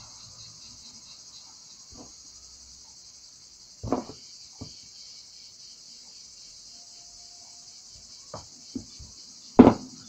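Steady, high insect chirring, with a few sharp clicks and knocks from handling stainless steel wire, crimp sleeves and crimping pliers; the loudest knock comes near the end.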